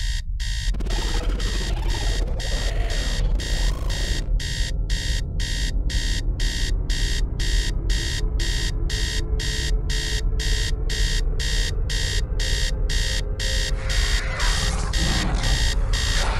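Electronic alarm-like beeping, a rapid regular pulse of about two to three beeps a second, over a steady low rumble. Near the end the pulse breaks up.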